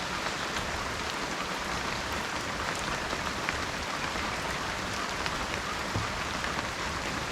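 Steady rain falling in a tropical rainforest: a dense, even hiss with scattered individual drops ticking.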